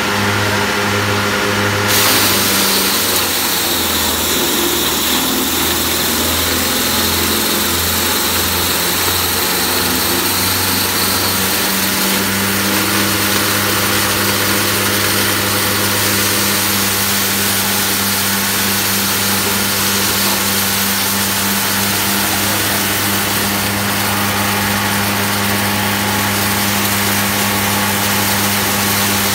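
Plastic dryer machine running: its electric motor hums steadily under a loud rushing of the rotor and blower air. The hum wavers for the first ten seconds or so, then holds steady.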